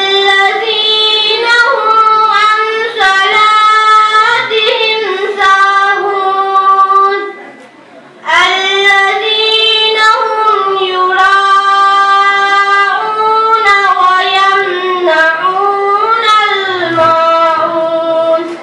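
A child's high voice reciting the Quran in a melodic, drawn-out chant, in two long phrases with a short breath pause about halfway.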